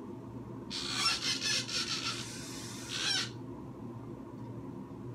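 A scratchy rustling or rubbing noise close to the microphone, starting about a second in and lasting about two and a half seconds, over a low steady room hum.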